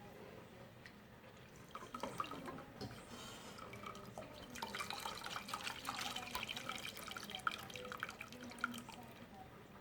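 Boiled carob juice trickling and dripping through a tulle cloth strainer. The drips pick up a couple of seconds in, are densest in the middle and thin out near the end.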